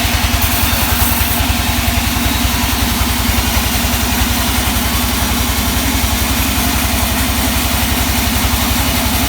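Sawmill's engine running steadily with a fast, even low beat, with no change in speed.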